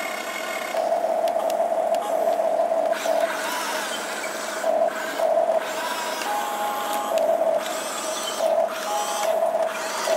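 Small electric motors and gearboxes of a radio-controlled toy excavator whining as it drives on its tracks and slews, with a steady tone that swells louder in short bursts as the controls are worked.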